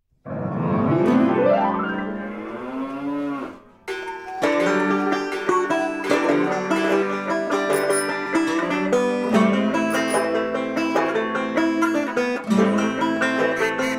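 A cow lowing once for about three and a half seconds, its pitch rising. From about four seconds in, background music of plucked strings like a banjo takes over.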